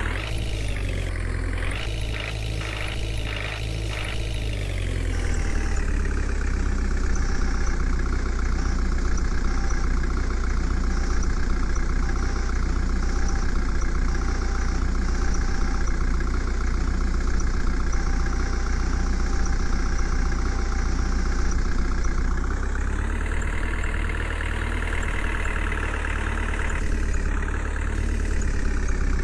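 A heavy vehicle's engine running with a strong low rumble; it drops in speed about five seconds in and picks up again around twenty-two seconds in.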